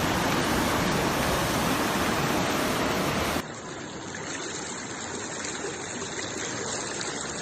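Rushing floodwater, a steady noisy rush; about three and a half seconds in it cuts suddenly to a quieter, duller rush of water.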